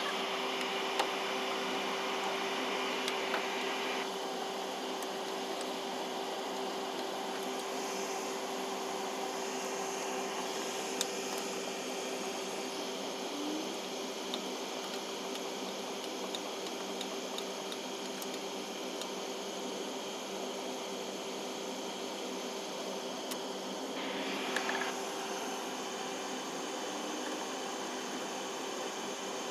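Steady machine hum with one constant low tone, a few faint clicks over it.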